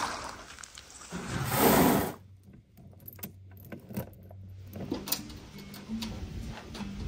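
A canoe paddle stroke swishing through the water about a second and a half in, then quieter scattered clicks and taps.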